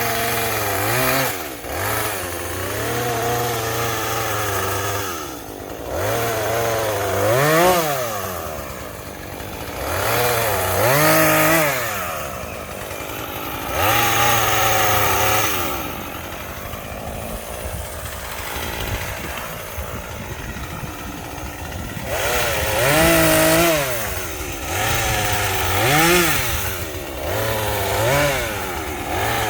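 Small gas chainsaw cutting brush, its engine revving up and dropping back every few seconds as the throttle is squeezed and released. There is a lower, steadier stretch near the middle.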